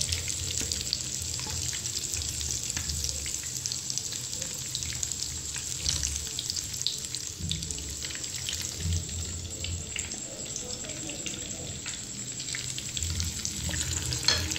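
Egg-coated chicken pieces shallow-frying in hot oil in a frying pan: a steady sizzle dotted with many small crackles and pops.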